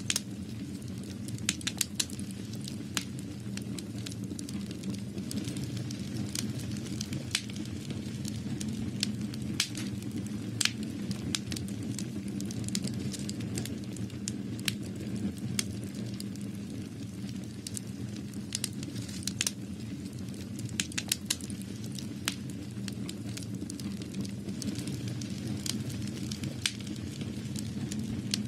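Irregular sharp crackles and pops, a few to several a second, over a steady low hum.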